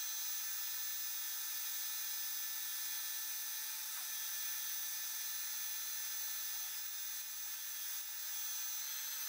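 Milling machine spindle spinning a sandpaper disc against the face of a cast silicon-bronze plaque: a steady motor whine with an even sanding hiss.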